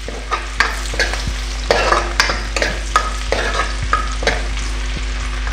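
Chopped garlic and ginger sizzling in hot oil in a wok while a steel spoon stirs them, scraping and clinking against the pan many times.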